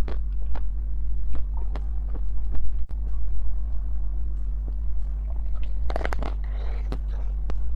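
Close-miked chewing of soft cream-filled cake: wet mouth clicks and smacks, two or three a second, over a steady low hum. Just after six seconds comes a denser, louder burst of clicks with a short rustle.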